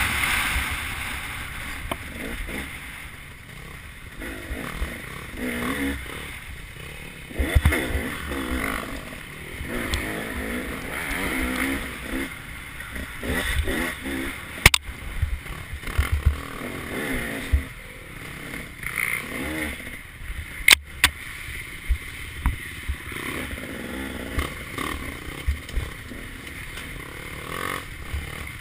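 Off-road dirt bike engine heard from the bike, revs rising and falling with the throttle over a rough trail, over wind buffeting the microphone. A sharp knock about halfway through and two more in quick succession about two-thirds through.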